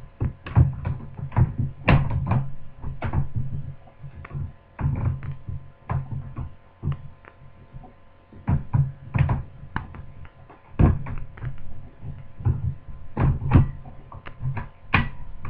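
Repeated plastic knocks and clicks as a Dell Inspiron M501R laptop is handled and its battery is reinserted into its bay, over a steady faint hum.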